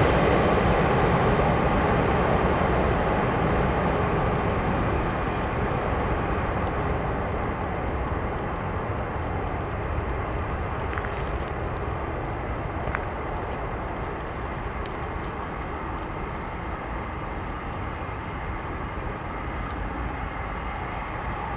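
Jet noise from a Boeing 747-400's four General Electric CF6-80C2 turbofans on landing approach, fading slowly as the aircraft moves away after passing overhead, the high hiss dying off first.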